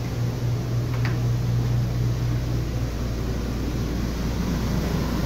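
Rooftop air conditioners running together: a steady whoosh of fans with a low hum that drops away about two and a half seconds in. They are running on the inverter off the battery bank.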